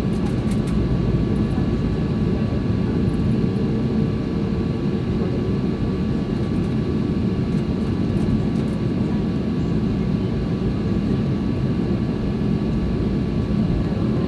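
Steady low cabin rumble inside a Boeing 737-800 on the ground after landing, with faint steady whining tones from the aircraft's engines and air systems.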